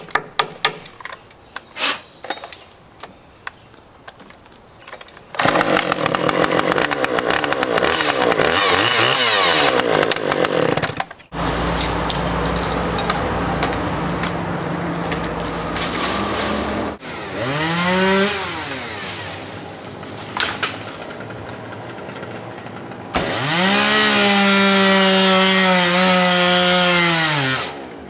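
Gas chainsaw run in several spells: a few knocks first, then a long loud stretch, a steadier lower drone, a quick rev up and down, and a few seconds held at full throttle before it cuts off.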